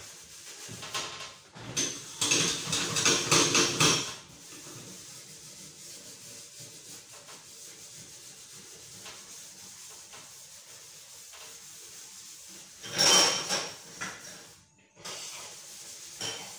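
Scrubbing the metal hob of a gas cooker by hand with soap to lift a stain. Quick rubbing strokes, loud for about two seconds near the start and again briefly near the end, with quieter rubbing between.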